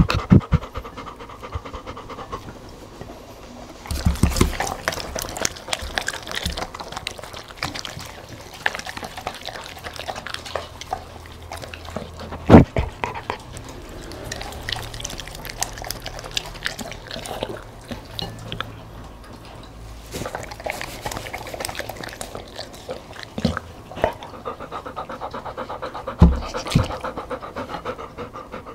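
Golden retriever licking, slurping and chewing spaghetti with wet mouth smacks, and panting between mouthfuls. A few sharp knocks stand out, the loudest about halfway through.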